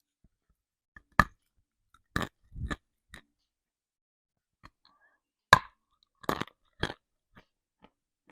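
Dry chunks of chalk being bitten and crunched close to the mouth: a series of sharp, crackly snaps, the loudest about a second in and again past the middle, each followed by a couple of smaller crunches.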